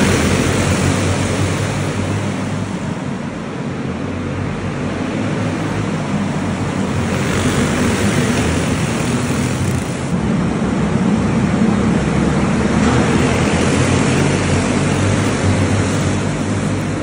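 A pack of clone-engine racing karts, small single-cylinder four-stroke engines, running hard around an indoor track, a loud continuous blare of several engines that swells and eases a little as the karts pass.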